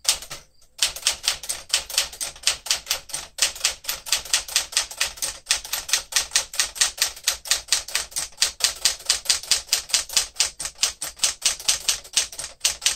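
Typing on a 1967 Sears Tower Citation typewriter, a Smith Corona-built machine with an elite typeface: its typebars strike the platen in a quick, even rhythm of keystrokes. A single stroke comes first, then a short pause before the steady run begins.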